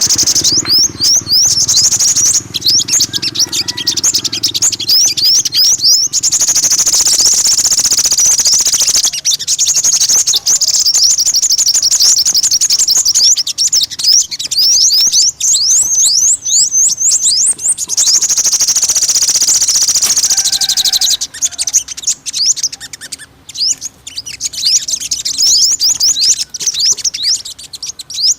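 Sunbird song: long runs of rapid, thin, high chirps and trills, nearly continuous, broken by a few short pauses and becoming more broken near the end.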